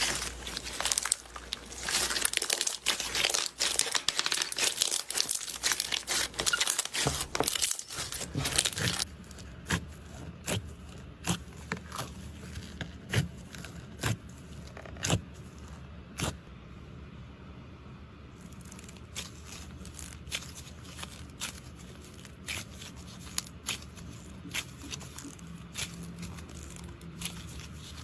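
Slime being squeezed and pressed by hand: dense, fast crackling and popping at first, then, about nine seconds in, a change to separate sharp pops every half-second or so.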